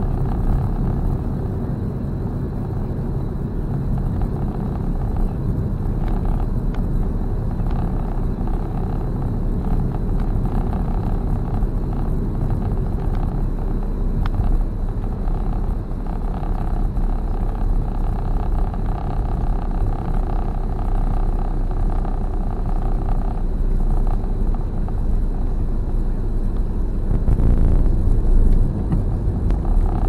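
A car driving along at a steady pace, heard from inside the cabin: a continuous low rumble of engine and tyres on the road.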